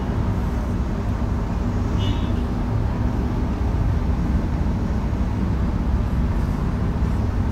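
Steady low background hum throughout, with a whiteboard marker squeaking briefly about two seconds in as it is drawn across the board.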